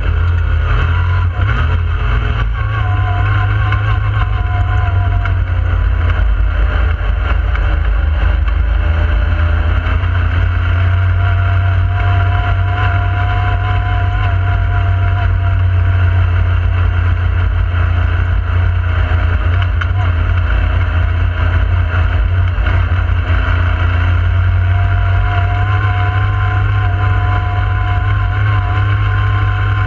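Yamaha YXZ1000R side-by-side's 998 cc three-cylinder engine running at a steady cruise, heard from inside the cab. A deep constant drone, with the engine note drifting gently up and down.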